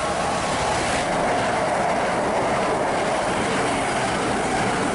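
Southern passenger train passing close by at speed: a loud, steady rush of wheels on rail and air, easing off slightly at the very end.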